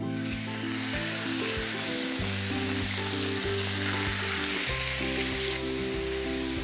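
Cubes of raw lamb sizzling in hot olive oil in a frying pan: a steady frying hiss that starts suddenly as the meat goes in.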